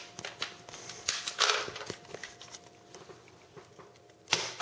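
A Nerf blaster being handled and fired: a series of small plastic clicks and knocks, then a sharp snap near the end.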